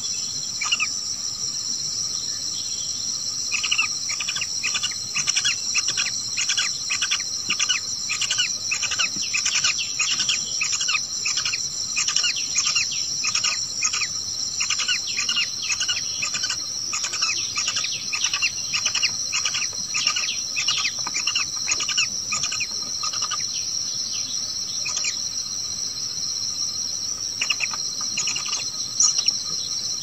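Steady high trilling of crickets. Over it comes a long run of short, quick bird chirps, about two or three a second, that thins out to a few scattered chirps near the end.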